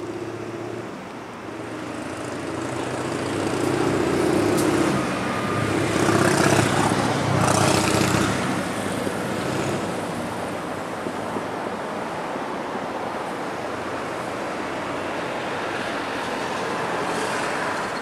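Tokyu electric commuter train running by close on the depot tracks, a continuous rail rumble with a faint steady motor hum. It swells to its loudest about six to eight seconds in, then settles into a steady rumble.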